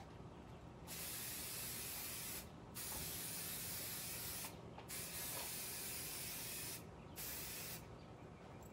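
Aerosol can of temporary spray adhesive for quilt basting, hissing in four spurts of one to two seconds each with short breaks between them, starting about a second in.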